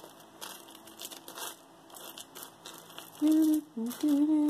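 Small earrings clicking and rustling as they are sifted through in a pile. About three seconds in, a woman starts humming a few held notes, which is louder than the rattling.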